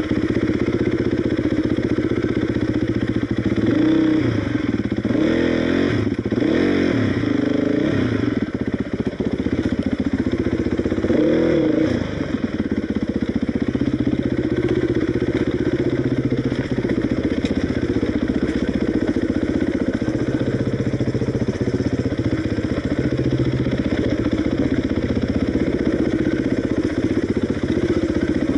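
Enduro motorcycle engine running at low trail speed, with a few short blips of throttle that rise and fall in pitch in the first dozen seconds.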